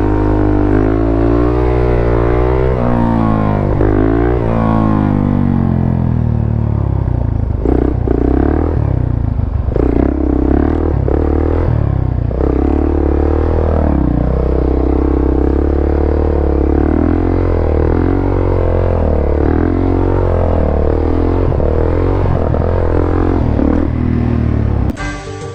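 Small motorcycle engines running and revving, the pitch rising and falling again and again over a steady running note. The engine sound cuts off abruptly near the end.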